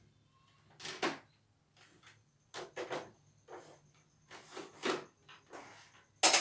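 Plastic housing of a portable embroidery machine being handled and fitted on a wooden bench: a string of irregular knocks, clacks and scrapes, with the sharpest, loudest clack near the end.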